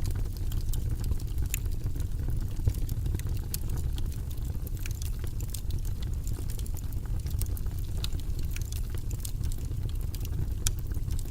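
Wood fire burning in a fireplace: a steady low rumble of flames with many small, irregular crackles and pops.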